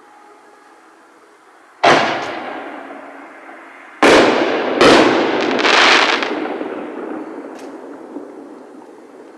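Consumer artillery shells bursting overhead: one sharp boom about two seconds in, then three more in quick succession from about four to six seconds, each dying away in a long rolling echo, with a small crack near the end.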